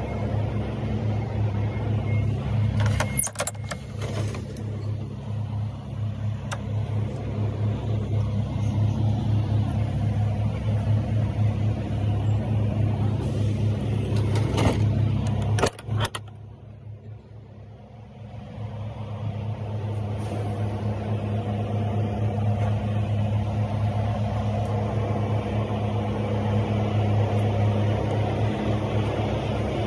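A heavy truck's diesel engine idling, a steady low drone. Handling knocks about 3 and 15 seconds in, and the drone dips for a couple of seconds just after the second knock.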